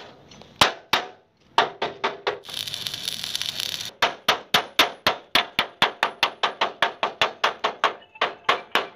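Hammer blows on a steel truck chassis rail, each with a short metallic ring: a few irregular strikes, a brief hiss a little after two seconds in, then a steady run of about three to four blows a second.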